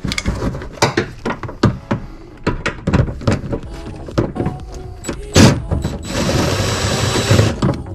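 A 10 mm bolt being worked loose with a socket tool: a run of irregular clicks and knocks, one sharp knock about five seconds in, then a power tool running steadily for about a second and a half near the end.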